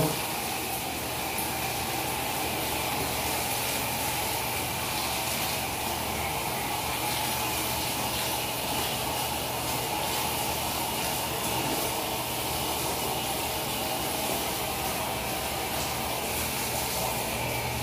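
Handheld shower running steadily, its water spraying over a person's soapy head and body to rinse off the shampoo.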